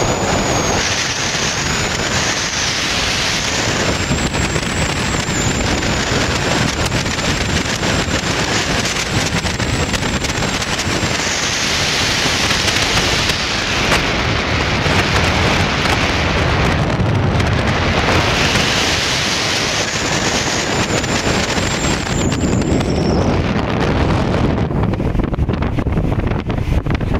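Steady rush of wind buffeting the microphone aboard a speedboat running at speed, with the boat's motor and water noise underneath.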